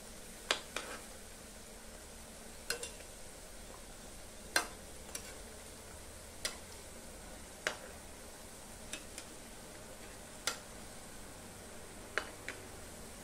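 Moong dal pakoras deep-frying in hot oil in a metal kadhai, a steady sizzle, with about a dozen sharp clinks of a metal spatula against the pan as the pakoras are turned over and over to fry evenly.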